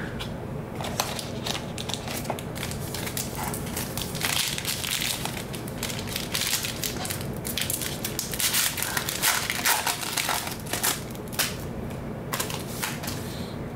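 Foil trading-card pack wrapper crinkling and crackling as it is handled and torn open.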